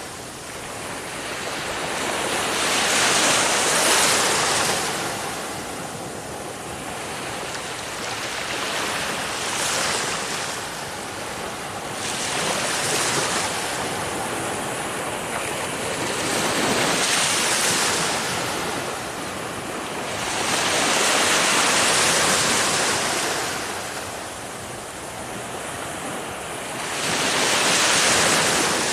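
Ocean surf: waves breaking and washing in, rising and falling in a slow rhythm of about six swells, one every four to six seconds.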